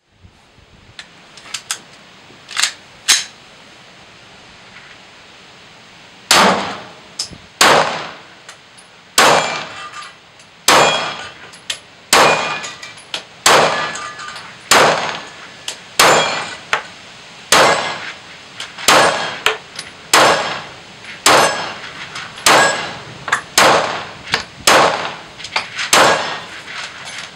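Glock 17 9mm pistol fired in a steady string of about twenty shots, roughly one every second, each followed by a steel target ringing as it is hit.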